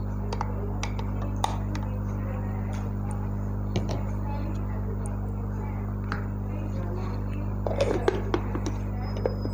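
Scattered light clicks and knocks of plastic utensils against a glass blender jar and plastic parts, with a cluster near the end as a plastic lid is fitted onto the jar, over a steady low hum.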